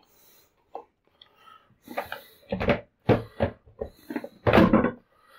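Plastic bidet seat being pushed and slid onto its mounting plate on a toilet bowl: a few faint scrapes, then a run of knocks and clunks over about two seconds, the loudest a little before the end, as the seat goes home on the bracket.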